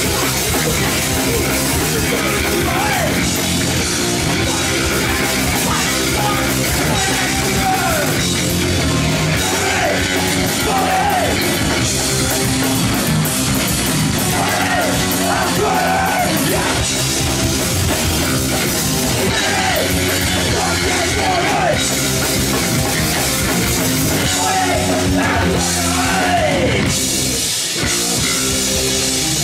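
A rock band playing loudly on stage, with electric guitar, bass guitar and a drum kit together.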